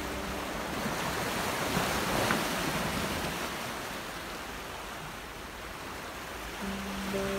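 Small sea waves washing against a rocky shore, a steady rush of surf that swells about two seconds in. Background music comes back near the end.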